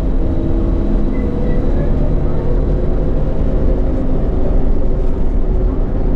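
Volvo B10BLE bus under way, heard from inside the cabin: a steady low engine rumble mixed with road noise.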